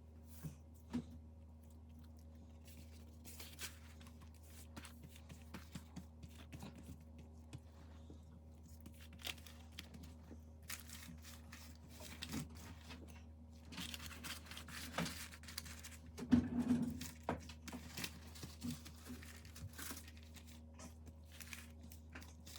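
Scattered kitchen handling noises: crinkling and crunching with light clicks and taps, busiest about two-thirds of the way through, over a steady low hum.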